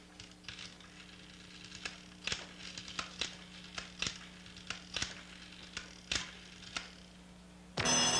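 A telephone being dialled: a run of irregular sharp clicks, some single and some in quick clusters, over a steady low hum. Loud music starts near the end.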